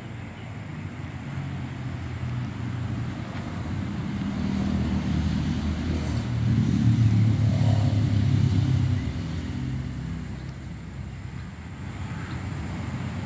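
A motor vehicle's engine hum that builds over several seconds, is loudest around the middle, then fades as it passes by.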